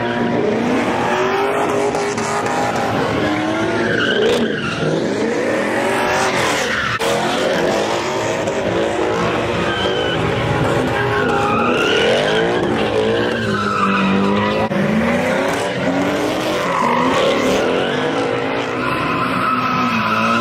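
Car engines revving up and down with tyres squealing as cars spin donuts on pavement, the squeals and revs overlapping and rising and falling throughout.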